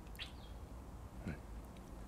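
A faint, short bird chirp about a quarter second in, and a brief low hum-like voice sound a little past the middle, over a low steady background noise.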